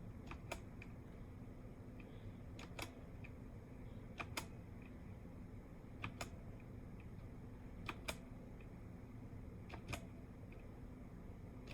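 Keys of a Redragon K630 60% mechanical keyboard being pressed: a pair of sharp clicks about every two seconds, six times in all, as a key combination is pressed to step through the backlight modes.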